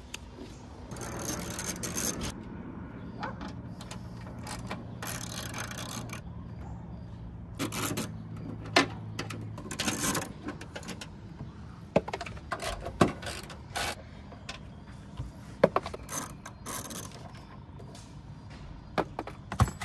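Hand tools working at bolts and a wiring connector inside a car's trunk lid: scattered sharp clicks and knocks of tool on metal and plastic, with short rustles. A low steady hum runs under the first half.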